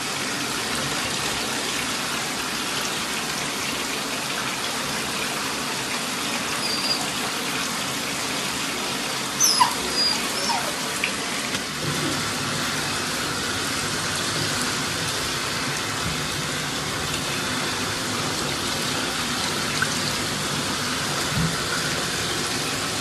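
Water running steadily, as from a tap into a tub. About nine to ten seconds in, a few short high-pitched squeaks sound over it.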